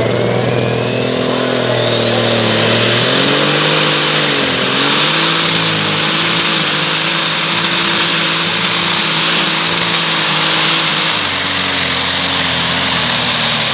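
Case IH light super stock pulling tractor under full power as it pulls the sled down the track, engine running flat out. A high turbo whine rises over the first few seconds and then holds. The engine note dips briefly about four seconds in, then recovers and stays steady.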